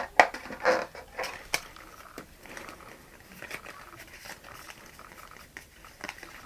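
Game cards handled: a few sharp clicks and scrapes as the deck is lifted from the plastic box insert in the first second and a half, then soft sliding and flicking as the cards are fanned out by hand.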